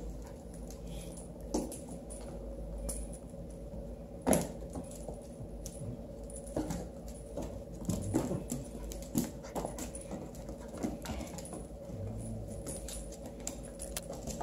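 Pocket beagle puppy and kitten playing on a hardwood floor: scattered clicks and scuffles of paws and bodies, with one sharp knock about four seconds in.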